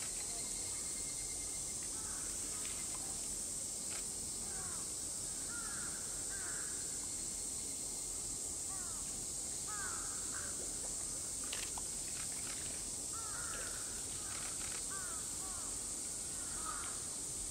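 Summer outdoor ambience: a steady high-pitched drone of cicadas, with short bird calls repeating every second or so.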